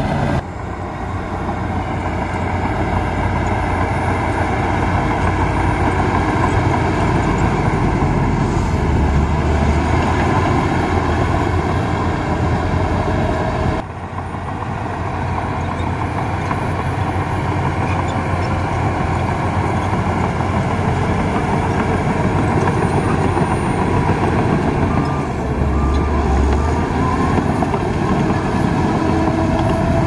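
Heavy diesel earthmoving machinery running steadily, a loud, continuous engine noise that dips briefly twice and builds back up.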